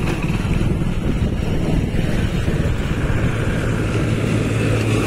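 Motorcycle engine running while riding, with wind rumbling on the microphone; about four seconds in the engine settles into a steady low hum.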